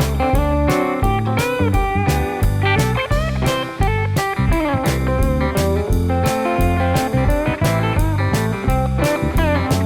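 Background music: a bluesy guitar tune with bending slide notes over a steady beat.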